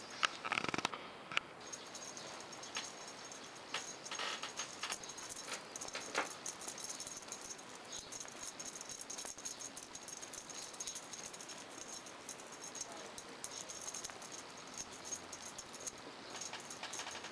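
Light rattling and scattered clicks, like a small rattle being shaken in irregular bursts, loudest about half a second in and again around four to six seconds in.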